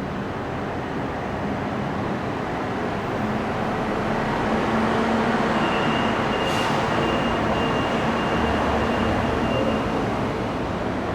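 An EMD G12 diesel-electric locomotive, with its twelve-cylinder two-stroke diesel running, rolls past pulling a brake van, its engine hum and wheel rumble swelling in the middle and easing near the end. A thin high whine rises over it for several seconds, and there is one short hiss about halfway.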